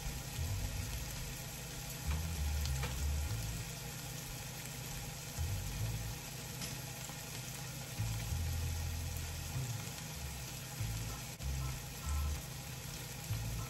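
Sausage and scrambled eggs frying in pans: a steady sizzle.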